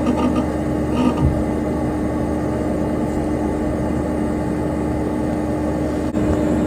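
Dell Dimension XPS P100c desktop computer running: its cooling fan and hard drive make a steady whirring hum with one constant tone. A couple of faint brief clicks come about a second in.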